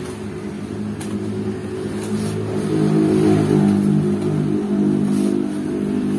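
A motor vehicle engine running. It grows louder about halfway through, then eases off toward the end.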